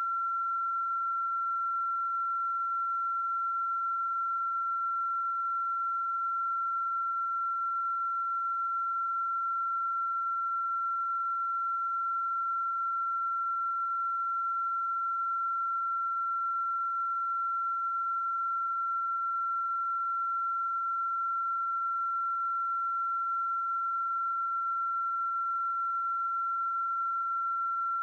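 A single steady, high-pitched pure tone, unchanging in pitch and loudness.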